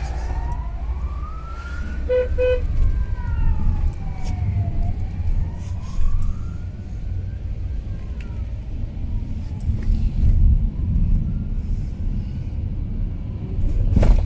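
An emergency vehicle's siren wailing, slowly rising and falling in pitch every few seconds, over the steady rumble of a moving vehicle's engine and road noise, heard from inside the vehicle. Two short beeps sound about two seconds in.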